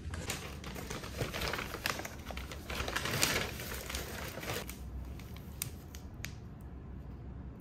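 Brown paper bag rustling and crinkling as it is handled and set down, loudest about three seconds in, then a few lighter crinkles and clicks as an item is pulled out.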